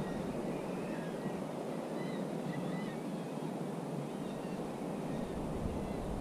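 Steady wind noise and sea-water wash around a kayak on open water, with a few faint, short high chirps in the first half.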